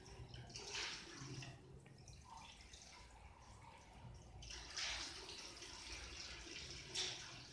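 Ballpoint pen drawing lines on notebook paper: a few faint scratchy strokes, the longest about five seconds in and a short one near the end.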